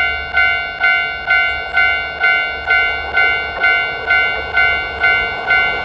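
Japanese railroad crossing alarm ringing its 'kan-kan' tone about twice a second, each strike fading before the next, over the running noise of a train that grows louder from about halfway.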